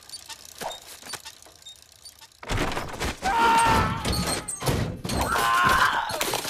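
Cartoon sound effects of runaway household appliances, a washing machine and then a toaster, clattering and thumping along a street. It is faint at first, then from about two and a half seconds in comes a loud, rapid run of clunks and bangs.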